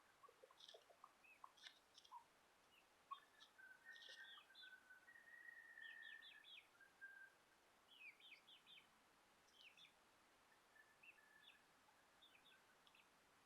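Faint bird chirps and calls: many short, quick chirps scattered throughout, with a few held whistled notes in the first half.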